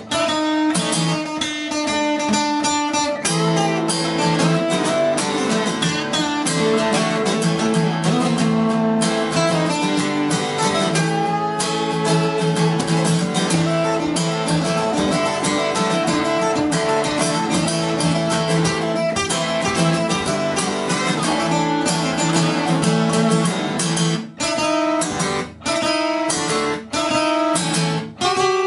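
Two acoustic guitars played together, picked and strummed. About 24 seconds in, the playing turns to short chord stabs with brief gaps between them.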